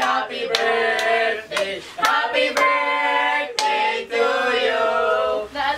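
A group of young voices singing a birthday song together, with hand claps about twice a second.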